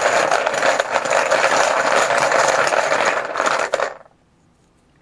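Team poker chips rattling and clattering as they are shaken and stirred in a container to draw one at random. The dense clatter stops abruptly about four seconds in.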